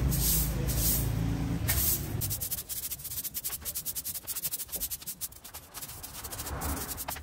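Short hand broom sweeping a bare concrete floor in quick swishing strokes. After about two seconds it turns quieter and more scratchy.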